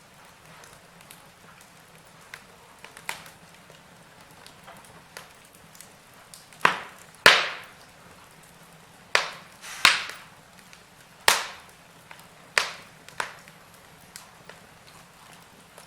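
Wood fire in a fireplace crackling: irregular sharp pops and cracks over a faint steady hiss, with the loudest pops bunched in the middle.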